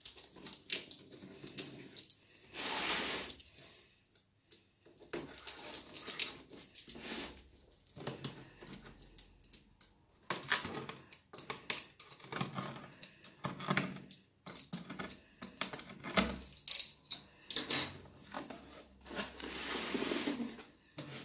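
Utility knife slicing and scraping along packing tape on a cardboard box, a run of irregular clicks, scrapes and cardboard rustles, with a longer tearing stretch about three seconds in. Near the end the cardboard box is handled and its flaps opened.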